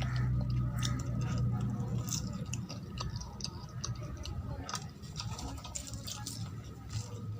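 A person eating poori with potato curry close to the microphone: irregular wet chewing and mouth clicks and squishes. A low steady hum runs underneath.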